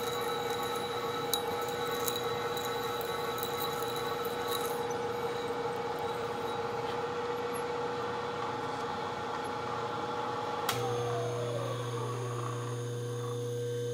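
Vertical milling machine running slow, a 3/8-inch twist drill cutting through a steel sprocket with a steady whine. About ten seconds in a click is followed by a falling whine as the spindle winds down, leaving a steady hum.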